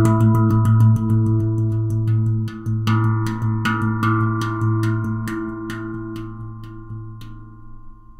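Steel handpan tuned to A2 Shanti (15 notes) played with the fingers, the deep low-A centre note ringing under rapid struck notes. The strikes thin out and stop about a second before the end, leaving the tones ringing and fading.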